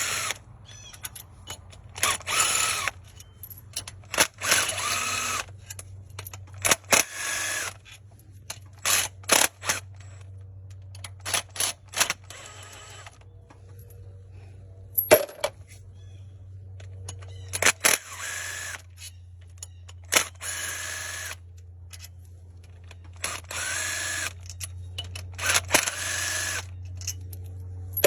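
A power tool spinning out engine bolts in about a dozen short bursts of roughly a second each, with a whine in each burst, over a low steady hum.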